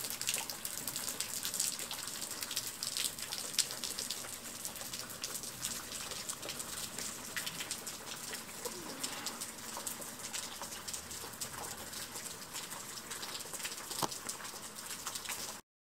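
Thin flow of water at Fudō Falls, a low-volume waterfall, dripping and trickling down a rock face: a steady hiss with many small drop sounds.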